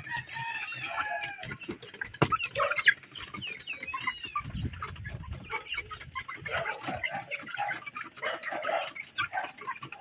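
Domestic hens clucking and squawking, many short calls overlapping, with a couple of sharp knocks about two and three seconds in.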